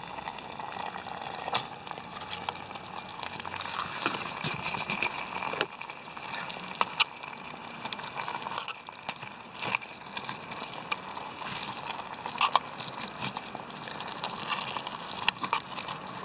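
Steak fajita filling bubbling in a canteen cup over an Esbit tablet stove, a steady simmer with scattered sharp clicks and taps of handling as the rice goes in.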